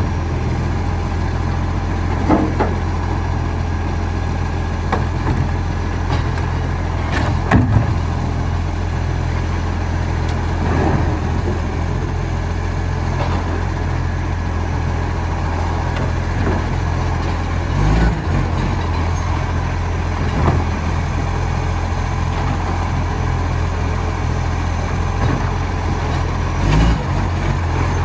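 Recycling garbage truck's engine running steadily with an exhaust leak, broken by a few short knocks and thuds.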